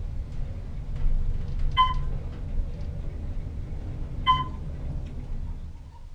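1909 Otis elevator car travelling in its shaft: a steady low rumble, with two short high beeps about two and a half seconds apart. The rumble fades near the end as the car slows.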